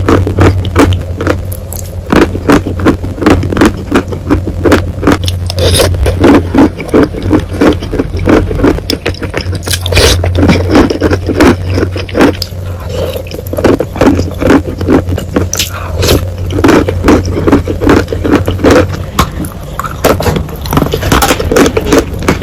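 Close-miked chewing and crunching of wet chalk with clay paste: a dense, unbroken run of crisp crunches and clicks. A steady low hum runs underneath and fades out near the end.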